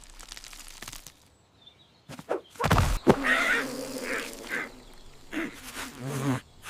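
Cartoon sound effects: a few thuds about two seconds in, then a run of short pitched animal-like calls and knocks.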